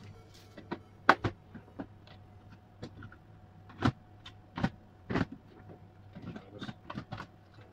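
Hard plastic tool carry case clattering: irregular knocks and clicks as a cordless drill and its charger are packed in and the lid is shut and handled. The sharpest knock comes about a second in, with a few more solid knocks around four to five seconds in.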